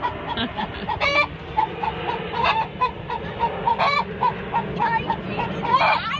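Domestic hen cackling: a steady run of short clucks, two or three a second, broken by four louder drawn-out squawks. It is the cackle that the keeper takes to mean the hen might be laying an egg.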